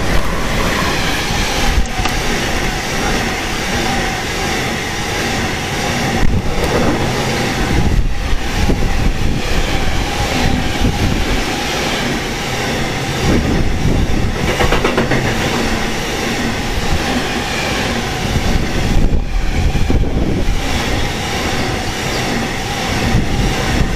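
Freight train of grain hopper wagons passing close by at speed: a steady, loud rumble with wheels clattering over the rail joints.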